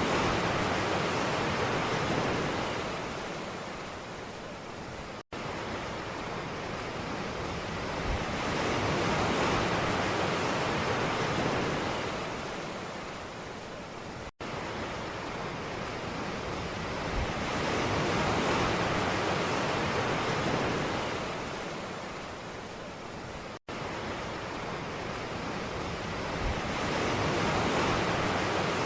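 Ocean waves breaking and washing on a shore, the surf swelling and falling back about every nine seconds. The sound cuts out for an instant three times.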